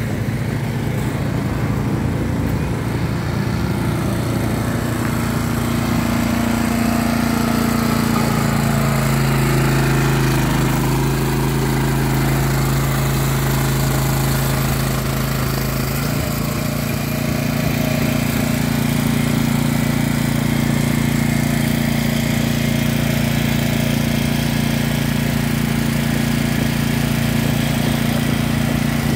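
Small gasoline engine running a belt-driven concrete hoist (malacate), a steady engine note that shifts pitch a few seconds in and again about halfway through as the hoist works.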